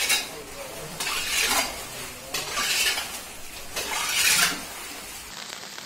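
Floodwater and silt being bailed by hand off a house floor: a metal vessel scraping and splashing, in strokes a little over a second apart. Near the end this gives way to a steady hiss.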